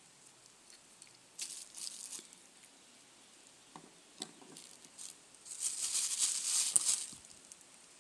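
Thin clear plastic bag crinkling as a hand rummages through pieces of kaolin clay inside it: a short burst about a second and a half in, a few small clicks, then a longer, louder crinkling near the end.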